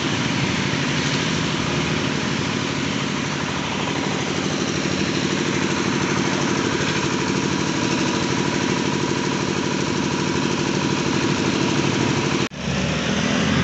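An engine idling steadily, an even, unchanging hum with no revving, cut off abruptly near the end.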